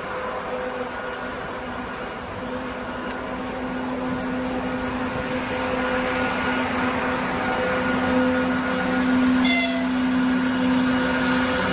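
2TE25KM two-section diesel locomotive running as it hauls a freight train past, its engine hum and rumble growing steadily louder as it draws level.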